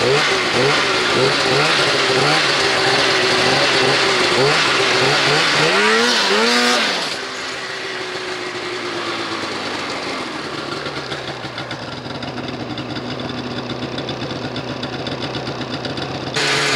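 Snowmobile engine under a rider's throttle, its pitch rising and falling every half second or so, with one sharp rev and drop about six seconds in. It then runs steadier and quieter until a sudden cut near the end.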